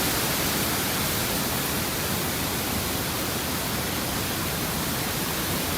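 Waterfall rushing with a steady, even roar of water.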